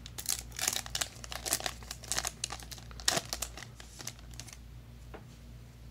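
Foil Yu-Gi-Oh! booster pack crinkling and tearing as it is ripped open by hand: a quick run of sharp crackles for the first three and a half seconds, then only a few faint clicks. A steady low hum sits underneath.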